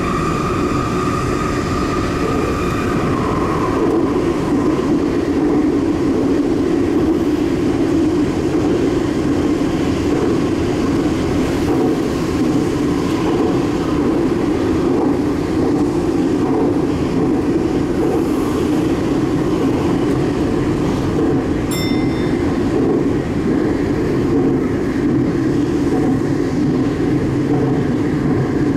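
Sendai Subway Tozai Line 2000 series train running at speed through a tunnel between stations, a steady rumble and rush of wheels and air heard from inside the car. A high whine fades out about three seconds in.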